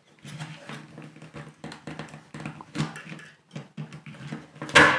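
A punch-down tool snaps once, loud and sharp, near the end as it seats a Cat6 wire into a keystone module's metal contact and trims the excess; it is described as a little bit noisy. Before it there is a low, steady hum with faint handling ticks.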